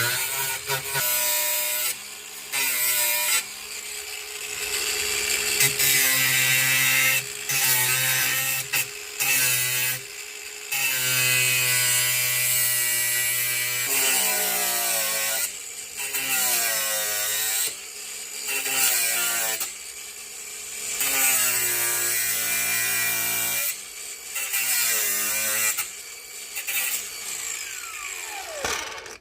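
Handheld power tool grinding the heads off small rivets, run in repeated bursts of a few seconds with short pauses; the motor's pitch sags under load and picks up again, with a hissing grind over it. It stops abruptly near the end.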